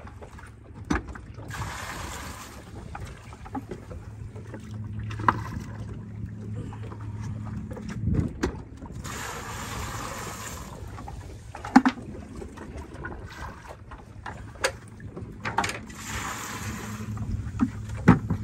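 Seawater poured from a plastic bucket into a boat's fish cooler: three splashing pours, each a second or two long, filling the cooler to ice-chill freshly bled sea bream. Sharp knocks of the bucket come in between, over a steady low hum.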